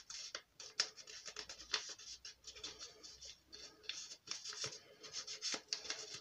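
Foam ink blending tool scraping and dabbing along the edges of a paper envelope, a run of short, irregular scratchy strokes.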